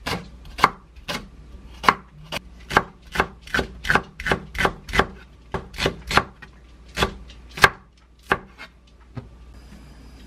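Chef's knife slicing a Korean green onion (daepa) on a wooden cutting board: sharp knocks of the blade on the board at about two to three a second, stopping about eight seconds in after a few lighter taps.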